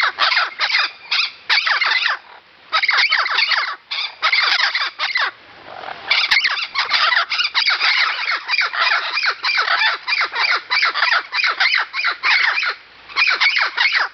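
Vinaceous-breasted amazon parrots calling in a rapid run of harsh squawks, several a second, broken by a short pause about five seconds in and another near the end.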